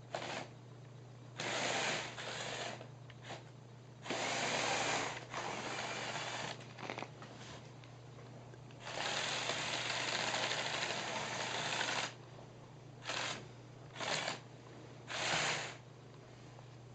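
Remote-controlled LEGO bulldozer's Power Functions electric motors whirring through their plastic gears in repeated short runs, with one longer run of about three seconds in the middle.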